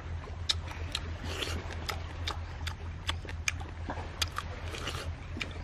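Close-up eating sounds: chewing a cooked sand lobster, with sharp mouth smacks and crunches coming about two or three a second, over a steady low hum.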